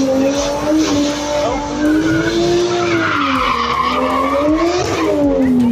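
A car engine held at high revs, its pitch wavering up and down and falling near the end, with tyres screeching on the track.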